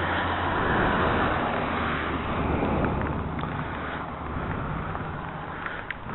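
A motor vehicle's engine running with road noise, swelling about a second in and fading over the rest, with a few small clicks near the end.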